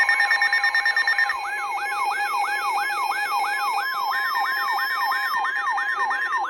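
Weather alert alarms sounding together: a siren-like tone sweeping up and down about three times a second over several steady alert tones, one near 1 kHz. The layering shifts about a second in, and the alarms cut off right at the end.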